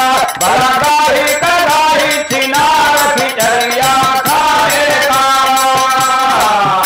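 Men singing a nagada birha folk song in long, bending held notes, accompanied by drum strokes and jingling percussion.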